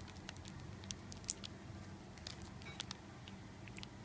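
Thin clear plastic bag crinkling in the fingers as it is handled: scattered faint crackles, with one sharper crackle about a second in.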